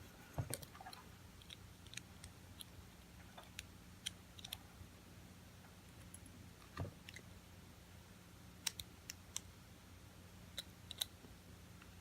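Faint, scattered small clicks and taps of a disassembled Trimax padlock's parts and the tools being handled, with a soft low knock about half a second in and another near the middle, over a faint steady low hum.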